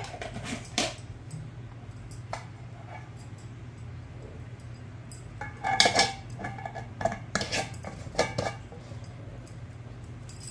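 Stainless steel lid being fitted onto a glass jar of pickled green peppers: a few clinks and knocks of metal on glass, most of them in a cluster about six to eight seconds in, over a low steady hum.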